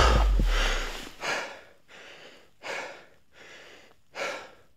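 A man panting hard after running uphill: heavy breaths close to the microphone, a loud one about every second and a half with softer ones between. Background music fades out in the first second.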